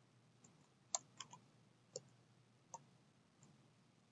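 Computer keyboard typing: about half a dozen faint, separate key clicks spaced unevenly, the loudest about a second in.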